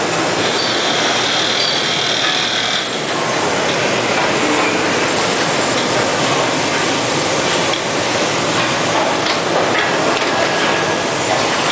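Automated CRT television production-line machinery running: a loud, steady mechanical din with faint clanks, and a high hiss over the first few seconds.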